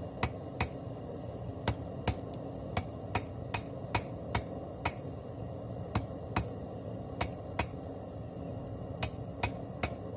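Light taps of a wide, flat blacksmith's hammer on an orange-hot steel billet lying on an anvil, setting the forge weld of a layered damascus billet: sharp metallic strikes, about two or three a second in short runs with brief pauses, over a steady low rumble.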